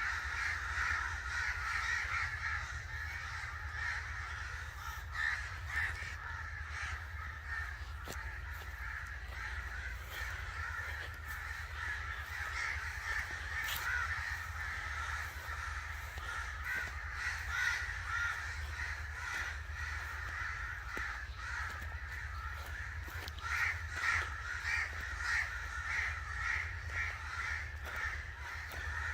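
Crows cawing continuously, many harsh calls overlapping, with a run of louder caws near the end.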